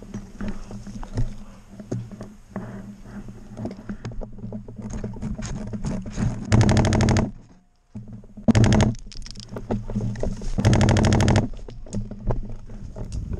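An airsoft gun fires three rapid full-auto bursts in the second half, each under a second long and close to the microphone. Before them come scattered clicks and rustling of movement over forest litter.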